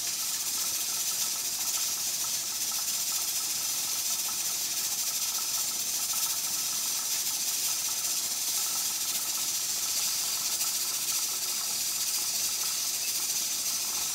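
Pressure canner at full pressure with steam hissing steadily out past the weight regulator on its lid, a really loud, even hiss with a faint steady whistle-like tone in it.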